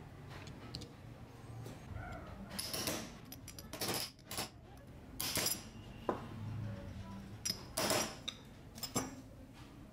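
Ball bearing being tapped down onto the steel shaft of a chainsaw gear with a metal tube driver: a series of irregular, sharp metal-on-metal taps and clinks.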